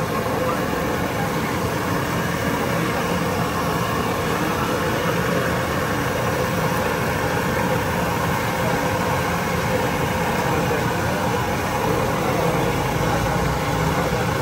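Steady street noise of motor traffic, with engines running and idling.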